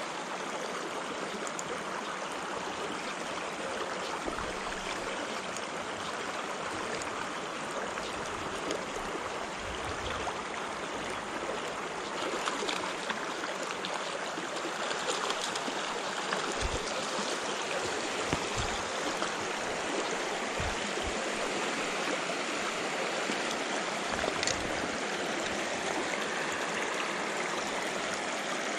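Shallow creek riffle: water running steadily over stones, a continuous rushing wash, with a few light knocks about halfway through.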